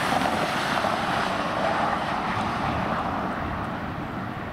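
Rushing noise of a passing vehicle, loudest at first and slowly easing off.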